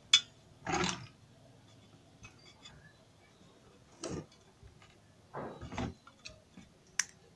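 High-voltage discharge snaps from a CRT television's picture-tube anode and flyback, shorted to chassis ground through a screwdriver: the stored charge (about 35,000 V) drains to ground. There is a sharp loud snap at the very start, short crackles about one, four and five to six seconds in, and another sharp snap near the end.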